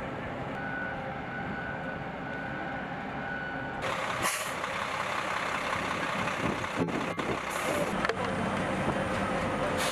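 Heavy military trucks running, getting louder about four seconds in, with a few short hisses on top.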